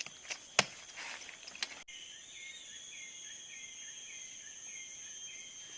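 Forest insects droning in steady high tones, with a short chirp repeating about twice a second. In the first two seconds a few sharp clicks or knocks are heard before the insect sound begins abruptly.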